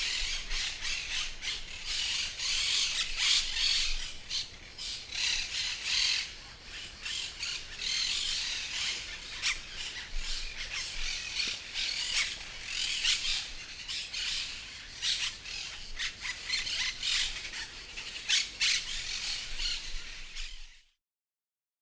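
A flock of many parrots squawking and screeching together, dense overlapping harsh high calls. The recording cuts off suddenly near the end.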